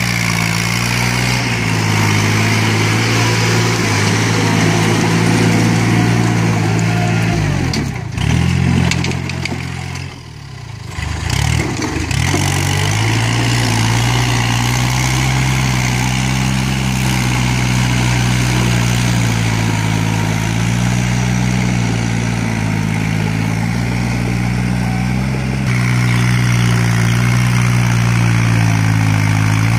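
Kubota compact tractor's diesel engine running steadily under load while its rotary tiller churns a muddy paddy field. The engine note wavers with the load, dips briefly about a third of the way through as the revs drop and pick up again, and is slightly louder near the end.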